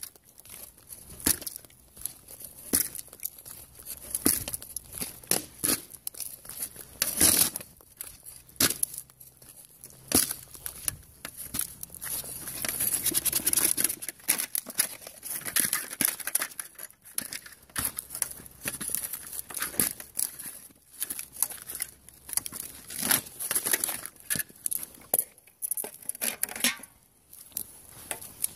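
Sneaker soles scuffing and stamping on gritty paving stones, with a helmet shell knocked and scraped underfoot. An irregular run of crunches, scrapes and sharp knocks, with a longer scrape around the middle.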